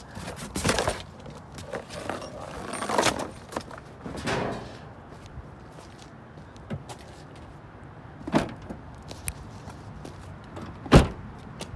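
Cardboard boxes of metal door locks being shoved and shuffled into a fully packed car, with rustling and metal clinking, then two sharp knocks, the loudest near the end, as a car door is shut.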